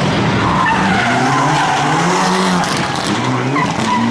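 Mitsubishi rally car driven hard, its engine revs rising and falling as the driver works the throttle and gears, with its tyres skidding as the car slides.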